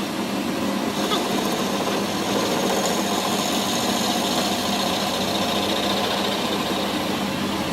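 Steady mechanical running noise from a workshop machine, even and unbroken, with a fast fine rattle to it.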